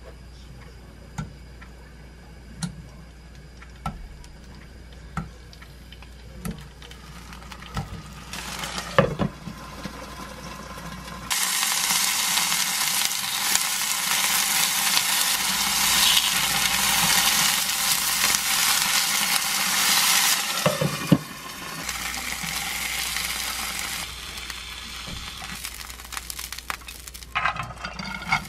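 Tofu slices frying in hot oil in a nonstick frying pan: a loud, even sizzle that starts suddenly about eleven seconds in and drops to a softer sizzle about ten seconds later. Before it there are only faint, occasional ticks from the pan of heating oil.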